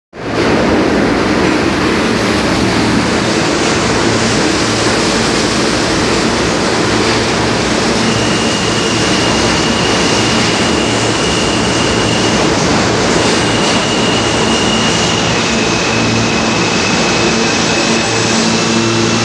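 New York City subway trains moving along the platform: a loud, steady rumble and rattle of the cars and wheels on the rails. A thin, high steady whine joins in about eight seconds in, with a short break and a slight drop in pitch partway through.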